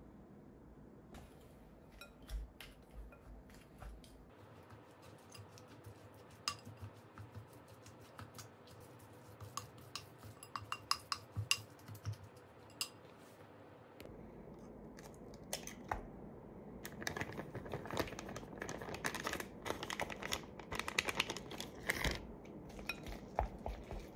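Silicone spatula stirring a ground pork and green onion mixture in a glass bowl, with sharp clicks and scrapes of the spatula against the glass. Just over halfway through the sound changes to denser, louder clicking and wet mixing.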